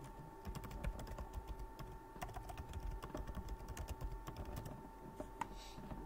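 Typing on a computer keyboard: a quick run of key clicks lasting about four seconds, then a couple of single clicks near the end, over a faint steady hum.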